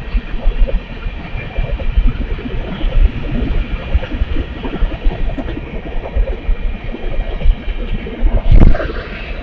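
Freight cars of a grain train rolling past: a steady rumble of steel wheels on the rails, thick with irregular knocks and rattles, and one louder bang near the end.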